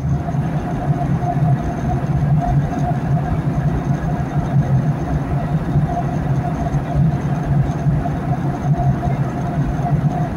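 Boeing 737-900 cabin noise at a window seat beside the engine: a steady drone of engine and rushing air as the airliner descends.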